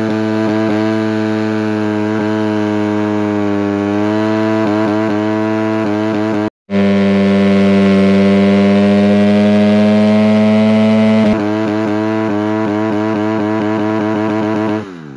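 Honda CRF250R's single-cylinder four-stroke engine held at steady high revs in a burnout, spinning the rear tyre on asphalt until the tyre is worn through. Near the end the revs fall away and the engine note stops.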